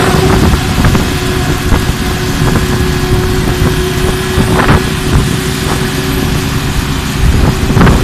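CIFA truck-mounted concrete pump running steadily during a concrete pour, with a steady hum, under wind buffeting the microphone. A couple of brief knocks stand out.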